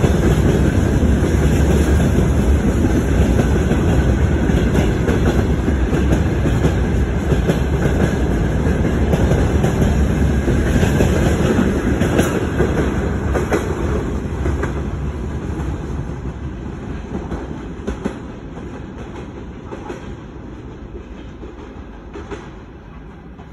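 Freight train wagons rolling past, a steady heavy rumble with wheels clacking on the rails. From a little over halfway through the sound fades steadily as the end of the train draws away, leaving a few separate clacks near the end.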